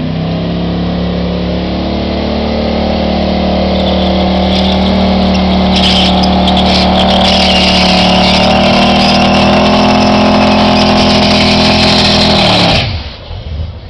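Twin-turbo Chevrolet S-10 pickup doing a burnout: the engine held steady at high revs while the rear tyres spin and squeal, the squeal growing stronger midway, then the revs drop off suddenly about a second before the end.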